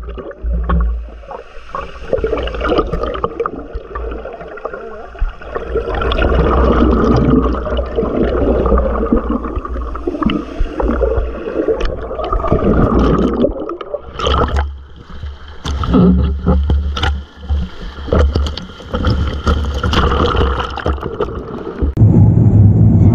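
Water sloshing and gurgling close to the microphone, with a low rumble of wind on the microphone and scattered sharp splashes or knocks.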